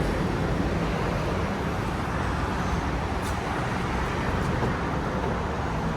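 Steady road and traffic noise: an even, continuous rumble and hiss of vehicles in motion.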